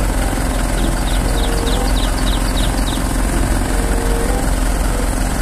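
Truck engine running steadily to power the hydraulic boom of a truck-mounted aerial work platform as it lifts the basket, a steady low rumble with a faint hum. A quick run of short high chirps comes about one to three seconds in.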